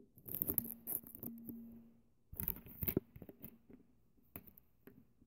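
Scattered clicks, creaks and scrapes of a plastic Blu-ray disc being handled and flexed in the hand, with a sharper click near the end, a strain that leaves the disc possibly cracked.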